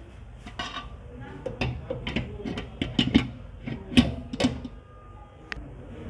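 Irregular clatter of metal bakery utensils and a mixer bowl being handled while dough ingredients go into a dough mixer: a quick run of clinks and knocks, the loudest about four seconds in.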